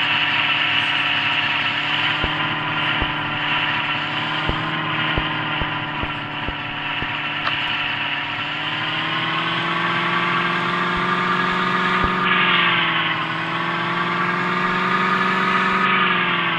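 Porsche sports car's engine running at low revs as the car creeps over rough ground. Its pitch rises gently past the middle, dips briefly and rises again, with a few light ticks.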